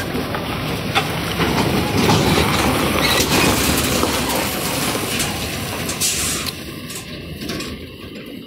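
Loaded cattle truck with its livestock trailer rolling slowly past on a dirt track: tyres crunching over the ground and the trailer body rattling with many short clicks and knocks, fading near the end as it moves away.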